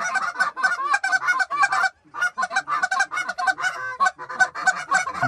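Canada geese honking rapidly and continuously, many short calls overlapping, with a brief break about two seconds in.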